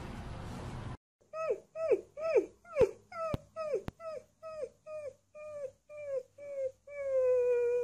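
Alaskan Malamute puppy howling: a run of short yips, each falling in pitch, about two a second, then one long steady howl held near the end.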